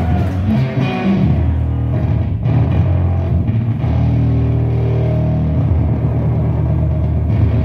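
Loud rock music with electric guitar, an instrumental stretch of long held low notes and no singing.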